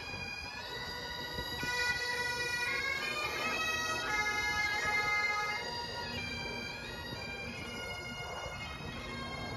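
Bagpipes playing a tune, the melody notes stepping up and down over a steady drone. The playing is louder in the middle.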